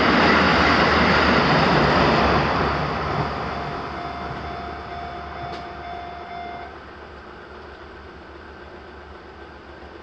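A JR Takayama Main Line diesel railcar passes close by, loudest in the first three seconds, then fading as it moves away. A steady tone, the level crossing's warning sound, runs under it and cuts off about seven seconds in as the crossing clears.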